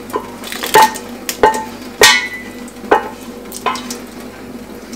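Stainless-steel jug knocking against a steel kitchen sink: about five sharp metallic clanks, each with a short ring, as cold water is poured from it over freshly drained chhana to cool it. A faint steady hum lies underneath.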